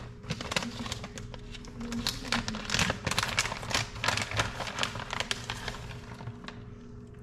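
A plastic bag of shredded Colby Jack cheese crinkling and crackling as it is handled and pulled open, over steady background music.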